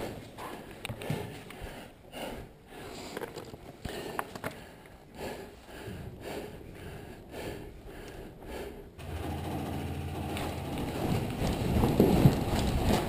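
Footsteps and gear rustling on a sand-and-rubble floor, with scattered knocks. About nine seconds in, a louder, steady rattling noise starts and grows.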